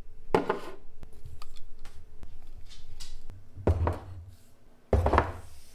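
A few dull knocks and thuds with smaller handling clatter between them, over a faint steady hum.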